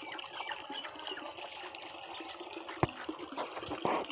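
Water sloshing and trickling in a concrete drinking trough as two water buffaloes drink from it, with a sharp click about three seconds in.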